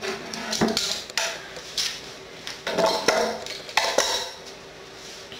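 A small workbench shelf being lifted out from beneath the bench: a handful of separate sharp knocks and clatters as it is handled free.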